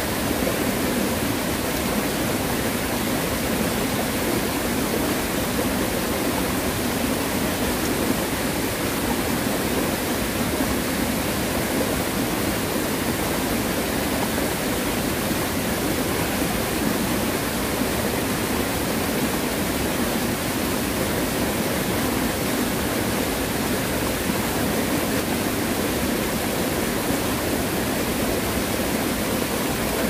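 Mountain stream rushing over rocks in a steady, loud flow of white water. The stream is running high, swollen by days of typhoon rain.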